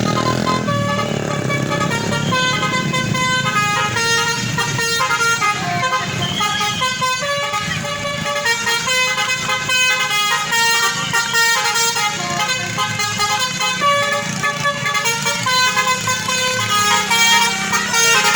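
Tour bus basuri horn, a multi-trumpet musical air horn, playing a tune in steady notes that change step by step.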